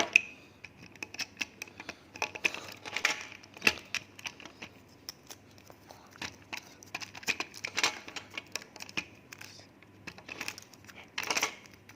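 Irregular small clicks, taps and crinkling noises of hands working on a motorized toy train's plastic shell and motor parts.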